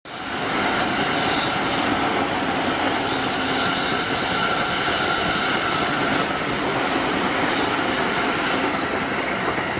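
A train passing over a level crossing: a steady, loud rumble of wheels on rail that starts abruptly and keeps going.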